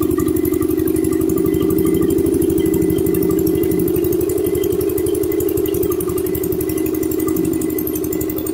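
Engine-driven Lindsay air compressor running on its Wisconsin 12 HP engine: a steady run of firing pulses with a loud, steady mid-pitched drone over them.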